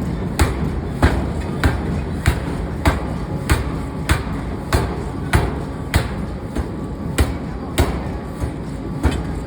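Forging hammer blows on metal, striking in a steady rhythm about every 0.6 seconds, with continuous workshop machinery noise underneath.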